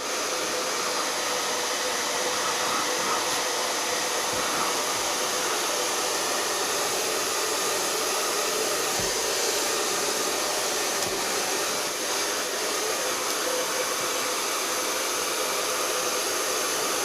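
Hair dryer running steadily: an even rush of blown air with a faint steady hum under it.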